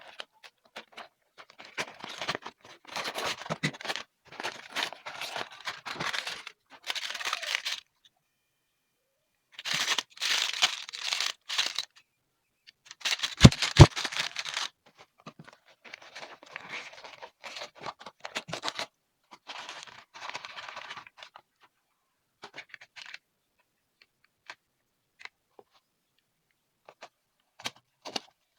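Packaging being torn open and crinkled by hand in bursts of a second or two. About halfway through there are two sharp knocks close together, the loudest sounds. Near the end only scattered small crackles and clicks remain.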